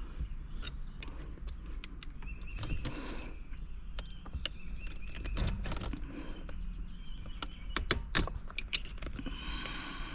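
Weighted shift knob being spun by hand onto the threaded shift lever of a six-speed manual, making small irregular metallic clicks and ticks as it turns.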